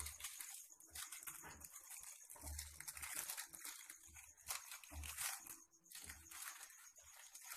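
Thin plastic wrapping sheet crinkling and rustling faintly as hands roll a filled pita bread up in it, with a few soft low bumps from the handling.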